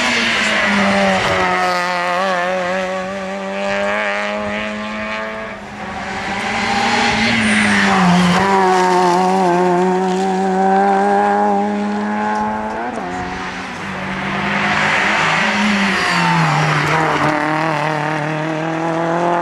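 Small hatchback rally cars, Peugeot 106s among them, driven flat out through a bend in turn. Their engines rev high, fall away and rise again several times as they brake and change gear, with some tyre squeal.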